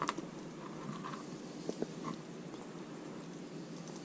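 Faint wet handling sounds of hands rolling a raw fish fillet with spinach and cheese on a plastic cutting board, with a few soft clicks and taps, over a steady low room hum.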